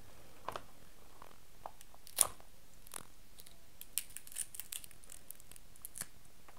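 King crab leg shell being cracked and its meat picked out by hand: scattered sharp clicks and crackles, the loudest about two seconds in.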